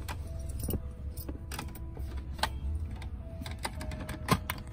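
Plastic pet carrier's wire grille door rattling and clicking as it is handled and closed: a string of irregular sharp clicks, the loudest near the end. A low, steady car rumble runs underneath.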